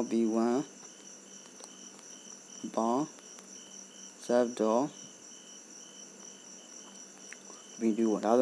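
Insects chirping steadily throughout, a continuous high trill over a lower, regularly pulsing chirp. Several brief wordless vocal sounds from a person break in, near the start, about three seconds in, about four and a half seconds in, and twice near the end.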